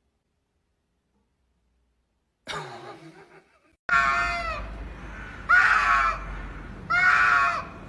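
Domestic cats yowling in a face-off: three long, wavering yowls about a second and a half apart, starting about four seconds in after a stretch of silence.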